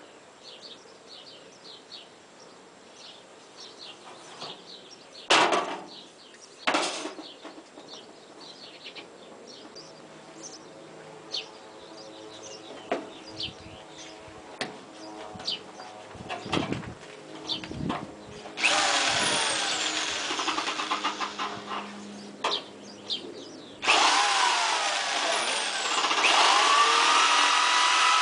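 Two sharp knocks from handling the sheet about five and seven seconds in, then a corded electric sheet-metal shear starts up past the halfway point and runs. About five seconds later it comes in louder, its whine rising and settling into a steady pitch as it starts cutting the sheet-metal skin.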